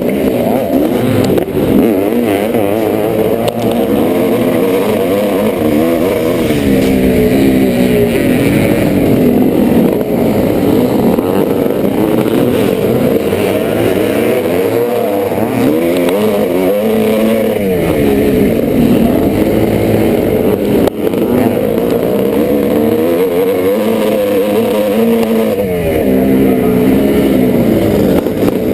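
1986 Yamaha YZ490's single-cylinder two-stroke engine revving hard, its pitch climbing and dropping again and again as the rider accelerates, shifts and backs off.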